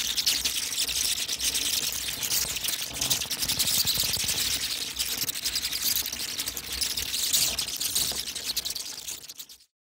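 A colony of bats screeching as they leave the roost: a dense chatter of rapid high-pitched clicks and squeaks, fading out about a second before the end.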